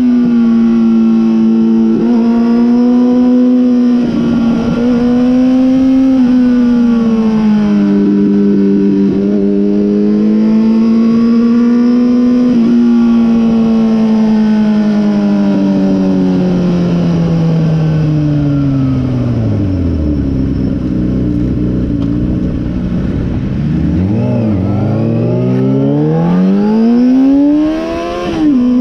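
Sport motorcycle's engine from the rider's seat, pulling at steady mid revs with small rises and falls, then the revs drop away smoothly to near idle for a few seconds while the bike coasts, and climb again with a brief dip near the end as it shifts. Wind rushes over the microphone throughout.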